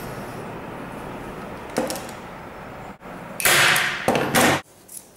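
Handling noise as linen is worked over the corner of a wooden canvas stretcher frame and a metal staple gun is picked up off the wooden table. There is a small click a little under two seconds in. About three and a half seconds in come two loud scraping bursts. A steady background rush runs under it all and cuts off suddenly near the end.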